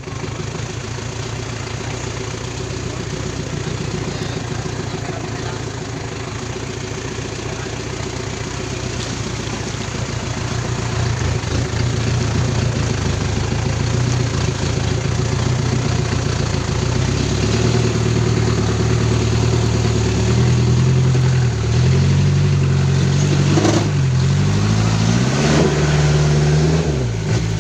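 A vehicle engine running under way. Its pitch is steady at first, then rises and falls repeatedly in the second half with changes of throttle and gear.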